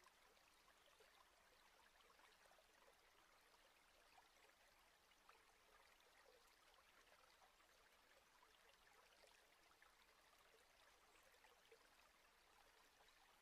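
Near silence: a faint, even hiss with tiny crackles.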